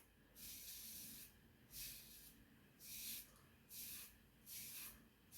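Faint, short scraping strokes of a safety razor fitted with a Feather Professional AC blade, cutting stubble through lather on the scalp, about one stroke every three-quarters of a second.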